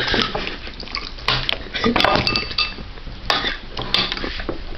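Metal spoons clinking against ceramic soup bowls: a series of light clinks, a few of them ringing briefly.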